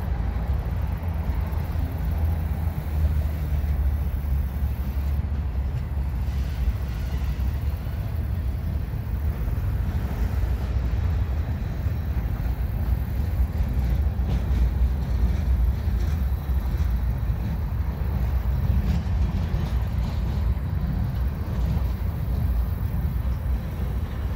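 Empty military flatcars of a freight train rolling past on steel rails, a steady low rumble of wheels and trucks with a few faint clicks from the wheels midway.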